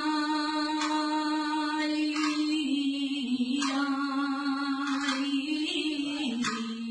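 A woman singing a saeta with no accompaniment: one long, ornamented held line with vibrato, sinking slowly in pitch in small steps.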